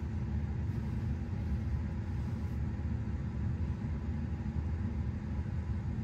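Steady low rumble of background noise inside a car cabin, with a faint even tone above it and no separate events.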